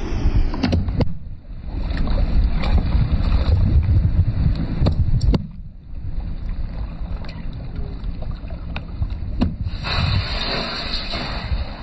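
Car rolling at low speed with a steady low rumble and wind buffeting the microphone, with scattered sharp cracks and clicks.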